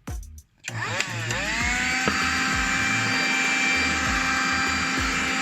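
Black + Decker Dustbuster 3.6V cordless hand vacuum switched on just under a second in, its motor spinning up over about a second to a steady high whine.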